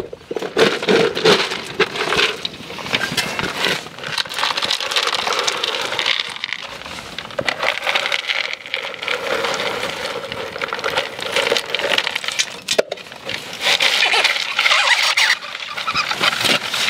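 Dry ice pellets being packed by trowel around a metal propeller shaft: a dense crackle and clatter of pellets, with stretches of squealing as the frozen pellets press against the metal.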